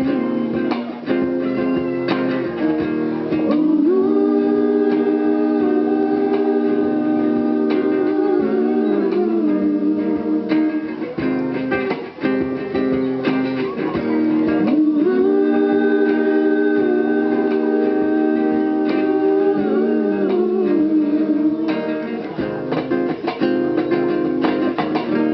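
Live acoustic band music: acoustic guitar accompaniment under a held, sliding melody line, with a brief dip about halfway through.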